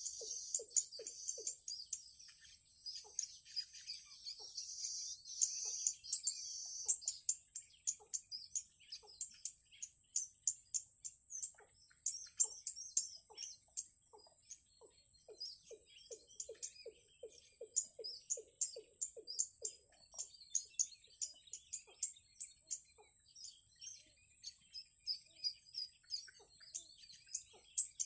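Yellow bittern chicks peeping in the nest: short, sharp, high-pitched chirps repeated a few times a second, over a steady high whine. About halfway through there is a run of low, rapid ticking pulses.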